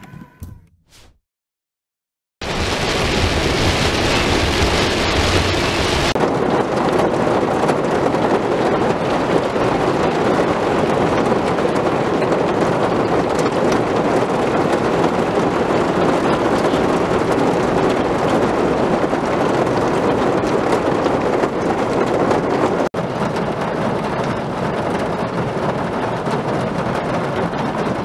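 Heavy storm wind and rain: a loud, steady rushing roar that starts a couple of seconds in, harshest at first, with one brief break near the end.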